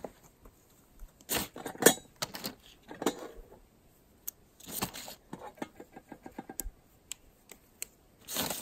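Scattered light clicks and crinkly rustles from handling small cook-kit gear: MSR folding utensils being folded and a Dyneema (DCF) stuff sack rustling.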